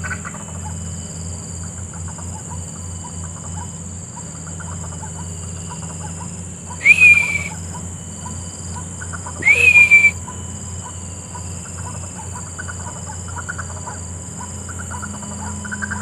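White-breasted waterhens (wak-wak birds) calling: a steady run of short repeated 'wak' notes, two or three a second. Twice near the middle, a few seconds apart, a louder sharp call slides up in pitch and then holds.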